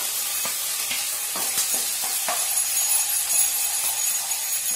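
Hot oil sizzling in a kadai, frying a tempering of mustard seeds, dals, green chillies and freshly added ginger-garlic paste, with a wooden spatula stirring and scraping the pan.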